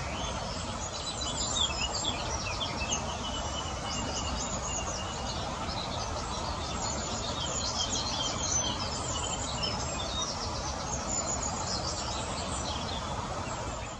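Many quick, high bird chirps and twitters, some in short runs, over a steady rushing noise of flowing river water.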